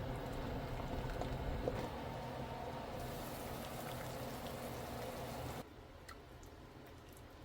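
Kitchen liquid sounds from cooking in a pot, with a few light clicks. The sound changes abruptly about three seconds in, then drops suddenly to a quieter background with faint ticks near the end.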